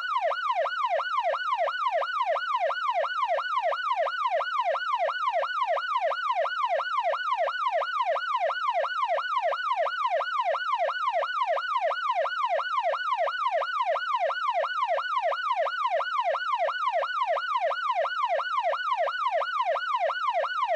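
Electronic police siren in its fast yelp, a pitch sweeping quickly up and down over and over at an even rate and steady loudness.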